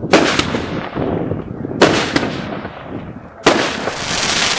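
Consumer firework cake firing aerial shots: three loud bangs about a second and a half apart, each trailing off over about a second.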